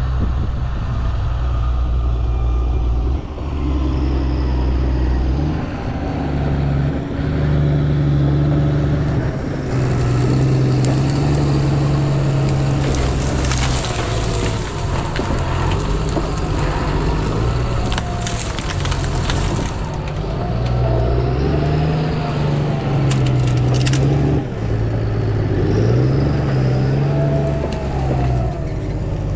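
John Deere grapple skidder's diesel engine running and revving, its pitch rising and falling. Bursts of wood cracking and brush being crushed come about halfway through and again a few seconds later.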